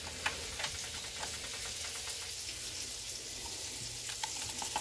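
Pork frying in a pan: a steady sizzling hiss with scattered small pops.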